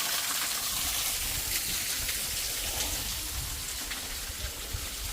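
Waterfall splashing down rock: a steady, even hiss of falling water, with some uneven low rumble underneath.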